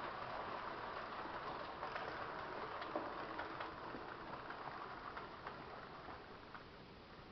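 H0 scale model train running on the track: a steady rolling rumble with the wheels clicking over rail joints, slowly fading as it moves away.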